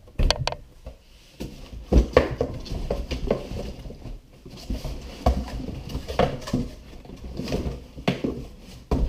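Reloading press parts and packaging being handled and unpacked from a cardboard box: irregular knocks and clinks of parts set down, with rustling in between.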